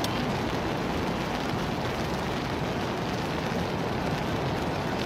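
Steady rain falling, an even, unbroken hiss. A brief click comes right at the start.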